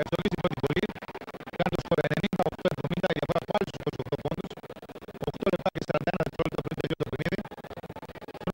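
Basketball arena crowd chanting in rhythm, loud and choppy, in phrases of a couple of seconds with short breaks between them.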